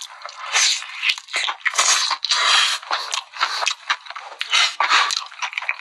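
Close-miked crunching and chewing of sauce-glazed fried chicken coated in melted cheese: a run of irregular crunchy bites and chews.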